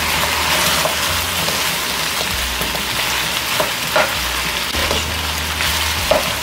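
Pork rib pieces sizzling as they brown in a nonstick pan, with a spatula stirring them; a few sharper knocks of the spatula against the pan, about three and a half, four and six seconds in.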